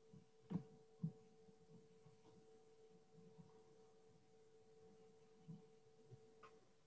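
Near silence: room tone with a faint steady hum and two soft clicks about half a second apart early on.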